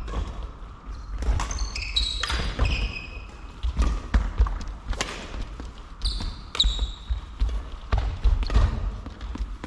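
Badminton rally: sharp racket strikes on the shuttlecock every second or so, with shoes squeaking and feet thudding on the wooden court floor.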